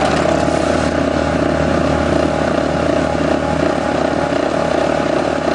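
NPK C4-C hydraulic compactor attachment on an excavator, vibrating steadily as it drives a pole into the ground, over the running carrier machine.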